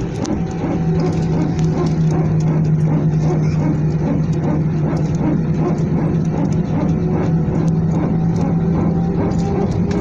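Airliner engine and cabin noise: a loud, steady drone with a constant low hum running under it.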